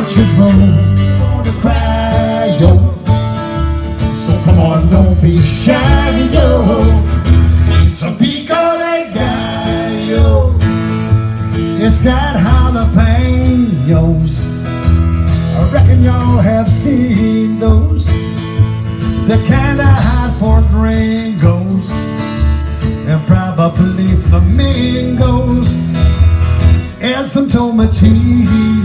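Live band music: a plucked bass line and a guitar, with a man singing, in a country/folk style. The bass drops out briefly about nine seconds in.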